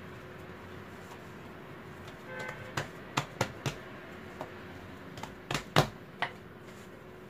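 Hands folding a sheet of laminated dough on a granite countertop. From about two seconds in come around eight sharp, irregular taps and knocks against the hard stone surface.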